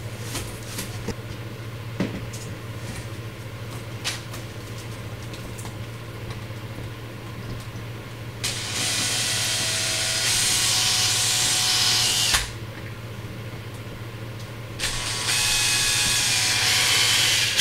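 Power drill boring small holes into the black plastic under-panel beneath the rear bumper. It runs twice, for about four seconds halfway through and for about three seconds near the end, after a few light handling knocks.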